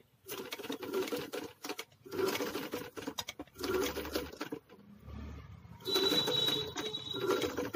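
Black Singar sewing machine stitching a zip onto a blouse side seam: runs of rapid needle clatter with brief stops, and a longer pause about halfway. A thin high tone joins near the end.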